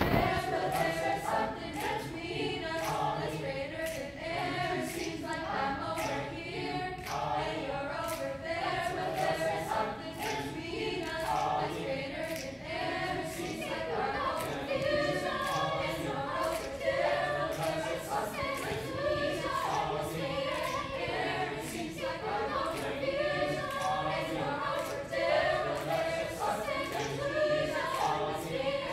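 High school SAB choir singing a cappella in mixed voices, with sharp clicks keeping a steady beat under the singing.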